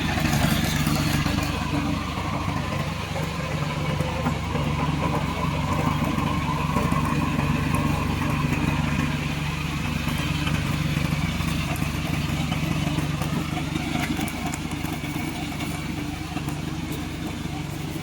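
Engine of a tracked remote-control lawn mower running steadily, with slight rises and falls in speed.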